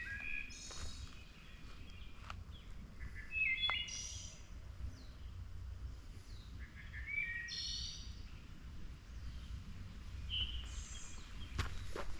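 Birds singing short, repeated phrases about every three seconds, over a steady low rumble.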